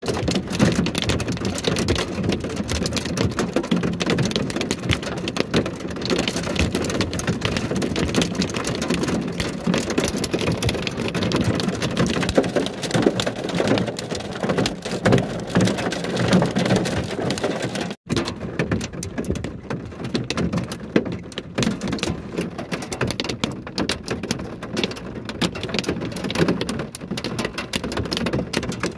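Torrential rain and hail falling, a dense, steady crackle of many small hits on surfaces. The sound cuts out for an instant about eighteen seconds in, then goes on with fewer, more separate hits.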